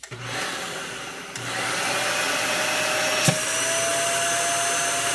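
Dyson DC65 upright vacuum cleaner switched on, its motor spinning up with a rising whine and then running steadily. A sharp knock comes about three seconds in, after which a steady whistle sits over the running noise.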